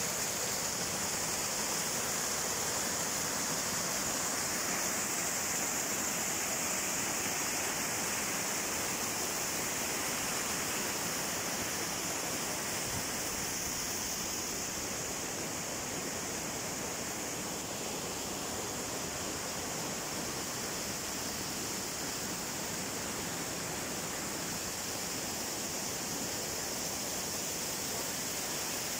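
Small waterfalls and cascades giving a steady rushing hiss of falling water, with no break or change.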